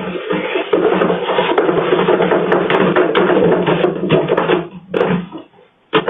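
Music with rapid knocking percussion, like a wood block, that breaks off about five seconds in, followed by a few short separate knocks.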